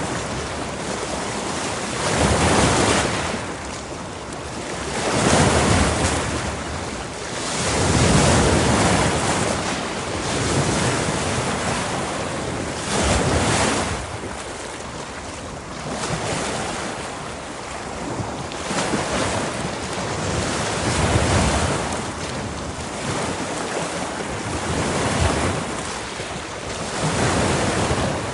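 Ocean surf: waves breaking and washing in, the rush swelling and fading every few seconds, with wind.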